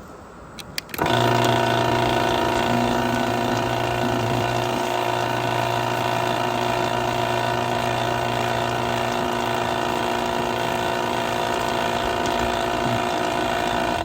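Chain-drive garage door opener running: a click, then the motor and chain start about a second in, run steadily with a low hum and a mechanical rattle, and stop abruptly near the end.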